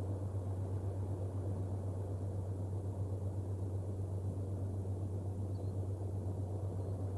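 Steady low electrical-sounding hum over a rumbling hiss, the background noise of an outdoor nest-camera microphone, with no bird calls standing out.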